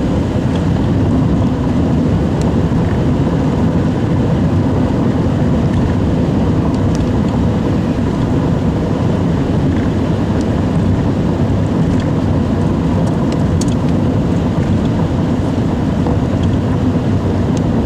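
Steady, low road and engine noise from a moving car, with a few faint ticks scattered through it.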